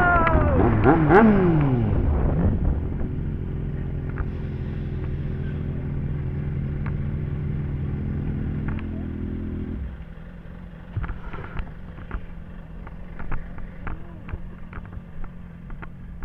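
Motorcycle engine with its revs falling in quick down-and-up glides, then idling steadily. About ten seconds in the engine sound drops away, leaving a low hum and scattered clicks.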